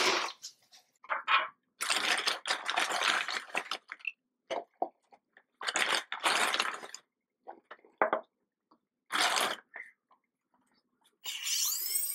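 Gypsum plaster powder tipped in several bursts from a paper sack into a plastic bucket of water, with crunching and rustling of the paper bag. Near the end a motor starts up with a steady whine: the drill-driven mixing paddle in the bucket.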